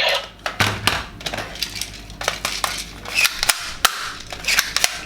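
Toy gun firing: a string of sharp, irregularly spaced clicks and pops.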